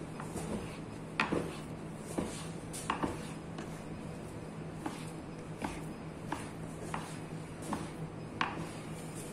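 Butcher's knife slicing through fresh pork and tapping a plastic cutting board, with a dozen or so short, sharp knocks spaced about half a second to a second apart.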